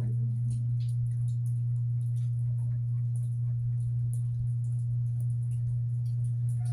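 Steady low hum, unbroken, with faint scattered ticks and clicks above it.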